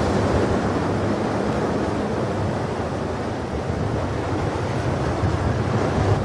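Ocean surf: waves washing and breaking on a shore, a steady rushing noise.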